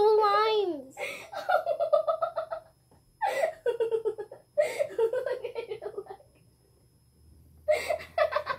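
Girls laughing and giggling without words, in several bouts with short breaks between them.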